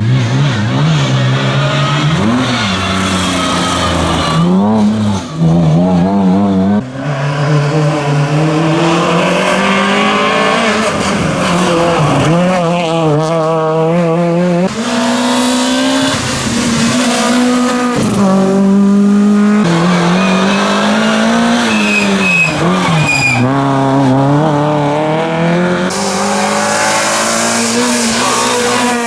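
Rally car engine revving hard on a stage, its pitch climbing and dropping again and again through gear changes and lifts off the throttle, with some tyre squeal.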